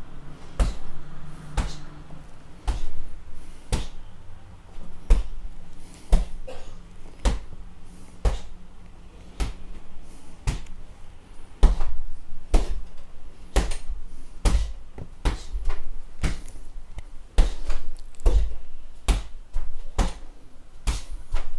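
Single karate hand strikes landing on a hanging heavy punching bag, one sharp smack at a time at an irregular pace, about one to two a second.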